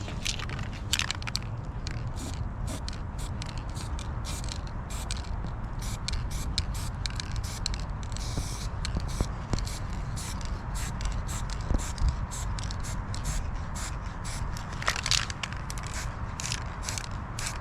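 Repeated short scraping and crackling strokes from hand work on a rusty car wheel rim being prepared for paint, with a brief hiss about eight seconds in.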